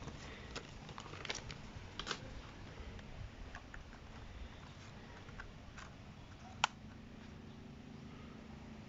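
Scattered light clicks and rustles of a small plastic foldable drone being lifted out of its foam-lined case and handled, with one sharper click about two-thirds of the way through.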